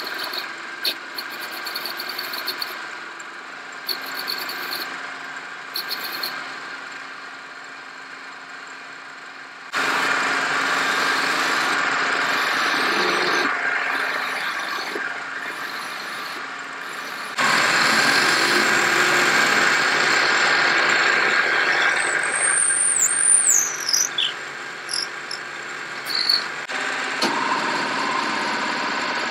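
Metal lathe running as it turns a wooden handle, with cutting tools biting into the spinning wood: a toolpost cutter, then a hand-held flat steel tool, and near the end a drill bit in the tailstock chuck boring into its end. The sound changes abruptly three times as one cut follows another, and there is a short high squeal that falls in pitch about two-thirds of the way in.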